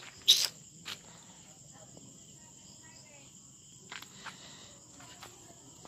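Crickets chirping steadily, a continuous high-pitched trill. A short sharp noise comes about a third of a second in, followed by a few fainter clicks.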